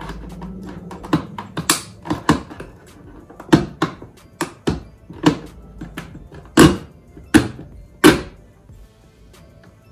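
Hip-hop beat background music with loud, sharp drum hits.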